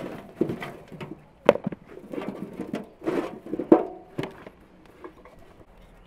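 Raw potatoes knocking against each other and the metal wheelbarrow as they are picked out by hand and dropped into a plastic bowl: a quick, irregular run of knocks and clatters that stops about four seconds in.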